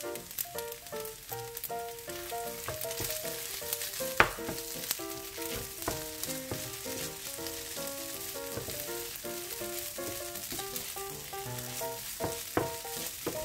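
Egg fried rice sizzling in a hot frying pan as a wooden spatula stirs and scrapes it, with a sharp knock of the spatula against the pan about four seconds in and another near the end. Light background music of short plucked notes plays over it.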